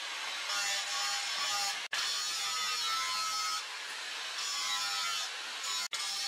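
Angle grinder running steadily with its abrasive disc grinding a rusted steel bar, a gritty hiss with a faint motor whine, easing slightly at moments as the pressure changes. The sound breaks off for an instant about two seconds in and again near the end.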